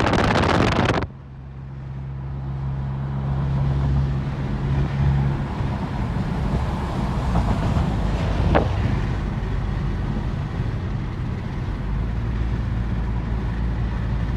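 Mercedes-Benz CLA 250 being driven on a test drive after an engine rebuild: a steady low hum of its engine and road noise. A loud rush of noise cuts off sharply about a second in, and there is one faint click later.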